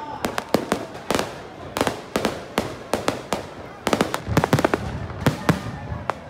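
Aerial fireworks bursting in a steady string of irregular bangs and crackles, with a dense flurry of reports about four to five seconds in.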